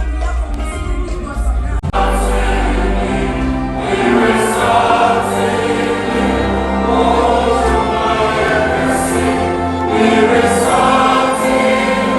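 Choir singing a gospel-style song over a band with bass. About two seconds in, an instrumental passage cuts abruptly into the choir.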